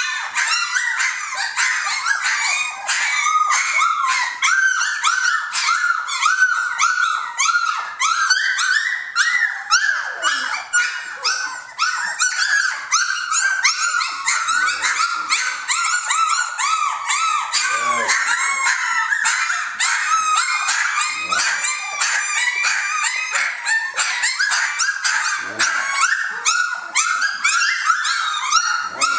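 A litter of three-week-old Jamthund (Swedish Elkhound) puppies whining and squealing all together, many short high cries a second overlapping into a constant chorus.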